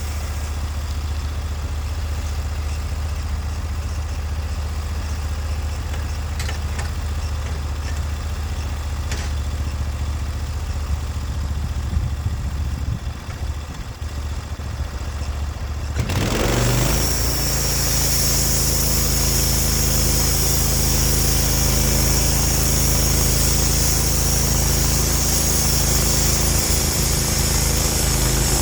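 Sawmill engine idling steadily, then about halfway through it is throttled up and runs on at speed, louder, with a steady high hiss added.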